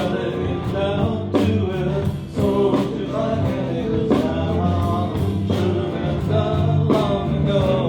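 Live band playing a song with a singer, a bass line and drums under the vocal.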